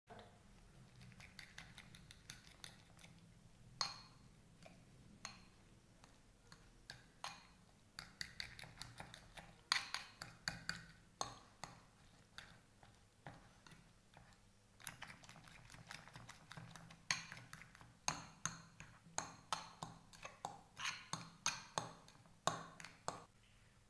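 A spoon stirring and scraping a thick potato-and-egg batter in a porcelain bowl: quick runs of clinks and scrapes against the bowl, with short pauses between runs.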